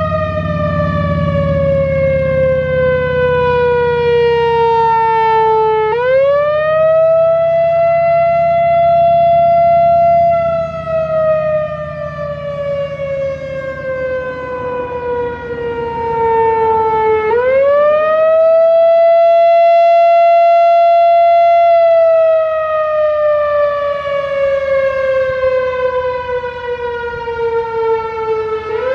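Whelen WPS-4004 electronic outdoor warning siren sounding the Attack signal, a wail: the tone rises quickly, holds high for a few seconds, then slides slowly down before rising again, about every eleven seconds. The pitch rises about six seconds in and again about seventeen seconds in.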